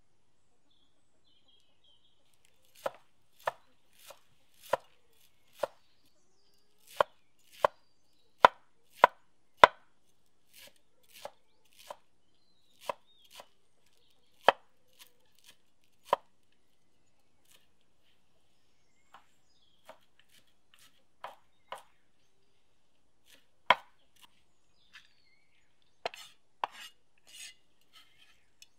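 A broad-bladed kitchen knife chopping fresh leafy herbs on a wooden cutting board. The blade strikes the wood in sharp, separate knocks, irregular and about one or two a second, starting a few seconds in.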